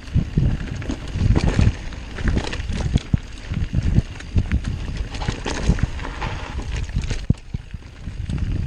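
Mountain bike rolling fast down a dirt singletrack: tyres rumbling on the dirt and the bike rattling and knocking irregularly as it runs over roots and bumps.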